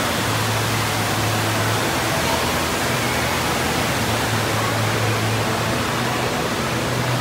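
Steady rushing roar of water pouring over a FlowRider surf-simulator wave, with a steady low hum underneath.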